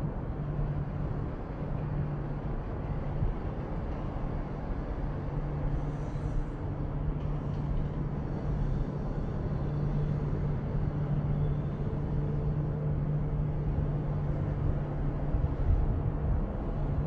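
Heavy diesel earthmoving machinery, a tracked excavator and articulated dump trucks, running steadily while sand is loaded, heard as a low, even engine drone.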